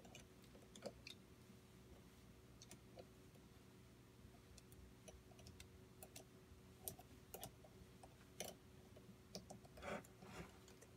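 Faint, scattered clicks and taps of small air-engine parts being handled and a too-tight nut being backed off by hand, a little busier near the end, over a low steady hum.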